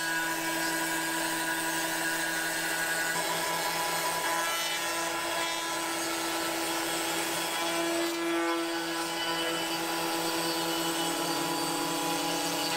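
CNC router spindle running with a wide surfacing bit, skimming the spoilboard flat: a steady whine over a hiss of cutting, shifting slightly in pitch a few times.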